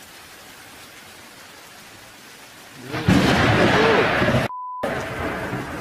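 Steady rain hiss, then about three seconds in a sudden loud thunderclap from a lightning strike that keeps rumbling. A short beep tone briefly replaces the sound near the end.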